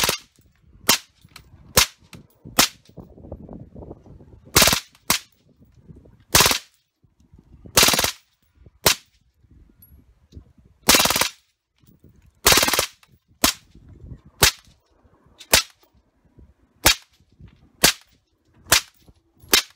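Suppressed FN P90 firing: about seventeen reports at irregular intervals, roughly a second apart, mixing single shots with several short bursts.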